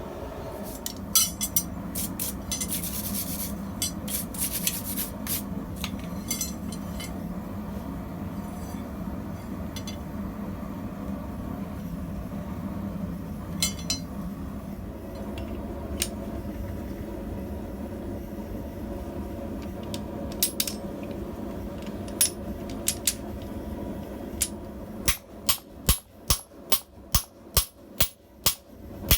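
Blacksmith's hammer striking hot steel on the anvil while forging a tong: scattered metal clinks over a steady low rushing noise, then near the end the noise drops away and about a dozen even hammer blows follow, roughly two or three a second.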